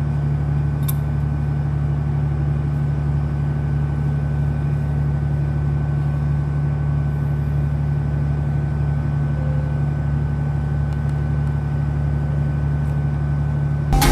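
Engine idling steadily, a constant low hum with a thin steady whine above it.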